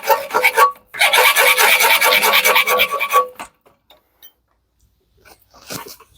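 Hand saw with a metal-cutting sabre saw blade sawing through a thick piece of metal: fast back-and-forth strokes, the metal ringing faintly under the blade. The sawing pauses briefly under a second in, resumes, and stops about three seconds in; a few faint knocks follow near the end.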